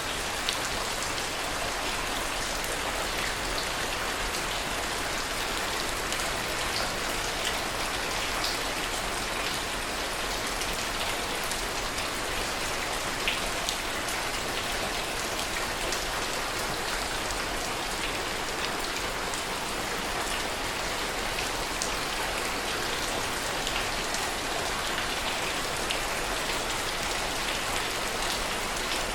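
Steady heavy rain, a dense even hiss with many individual drops ticking on a surface.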